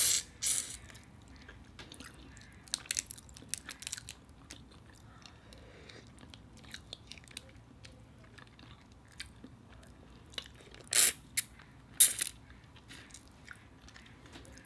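Close-up eating sounds of whole cooked shrimp: sucking and chewing, with shells crackling as they are peeled. Bursts of sharp crackles come near the start, about three seconds in, and again around eleven to twelve seconds in.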